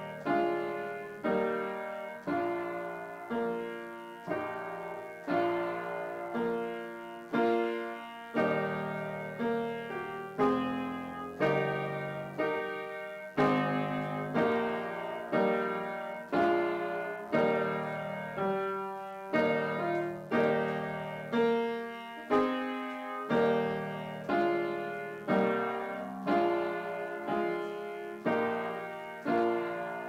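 Solo upright piano played slowly, chords struck about once a second and each left to ring and fade.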